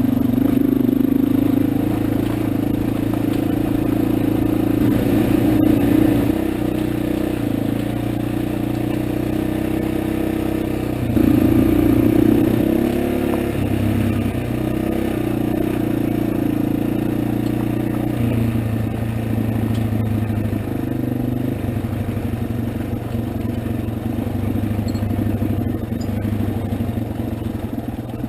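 225 cc motorcycle engine running at low revs while riding down a rocky trail, its pitch and level shifting several times with the throttle. Scraping and clattering from the bike going over rocks.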